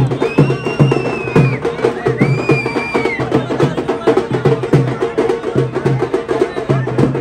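Percussion-driven music with a steady drum beat, and two long high whistles, each about a second, in the first three seconds.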